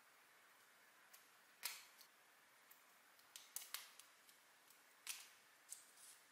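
LEGO Technic plastic parts clicking as they are pressed together by hand: scattered sharp clicks, the loudest about a second and a half in and again about five seconds in, with a quick run of three around three and a half seconds.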